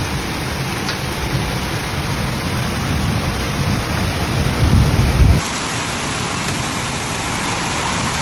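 Steady hiss of a heavy storm downpour, under a deep low rumble that swells about four to five seconds in. The rumble stops abruptly at a cut, leaving only the steady rain.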